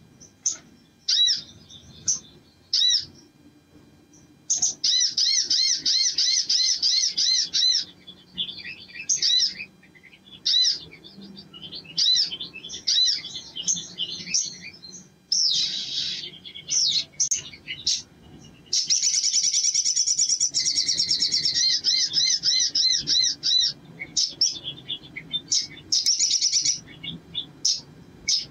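Male olive-backed sunbird in full song: scattered sharp chirps, then long trills of quickly repeated high notes, broken by varied twittering and a short buzzy rattle about halfway through.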